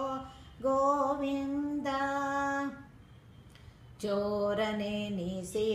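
Woman singing a Kannada devotional song unaccompanied. She holds one long sung note, breaks for about a second, and comes back in near the end on a lower note.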